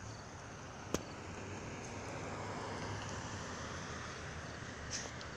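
A car approaching on the street, its tyre and engine noise building over the first few seconds. A single sharp click comes about a second in.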